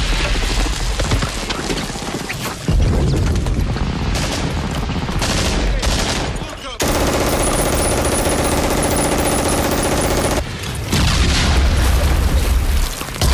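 Film battle soundtrack of a beach landing: dense machine-gun and rifle fire with explosions and soldiers shouting. The sound cuts abruptly between shots, with a steadier buzzing stretch from about seven to ten seconds in.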